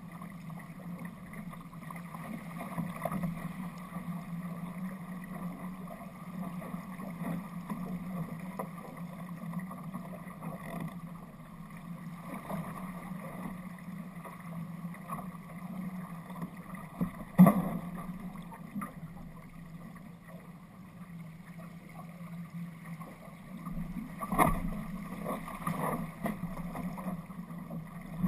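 Steady rush of water along the hull of an RS Aero sailing dinghy running downwind through chop, with two sudden louder thumps, about 17 and 24 seconds in.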